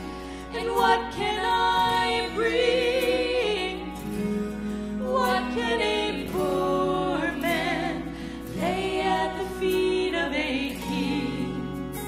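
Two women singing a gospel worship song into microphones, their voices wavering with vibrato over a sustained instrumental backing.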